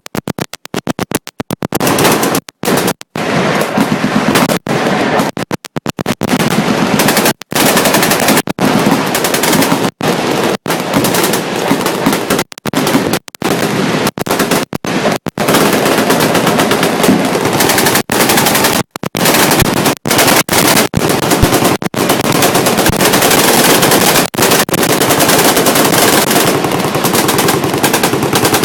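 Many machine guns firing at once in dense, overlapping bursts, almost without a break. The sound cuts out for split seconds again and again, most often in the first couple of seconds, as if the recording is overloaded.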